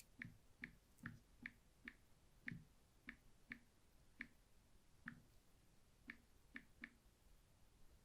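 About fourteen faint, short clicks at an uneven pace, roughly two a second, with a longer gap past the middle.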